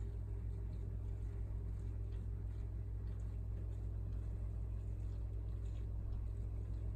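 Steady low hum of aquarium equipment, with faint ticking from the bubbles of an air stone rising through the tank water.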